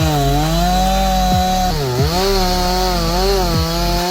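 Chainsaw running under load while cutting wood, its engine note dipping and recovering several times.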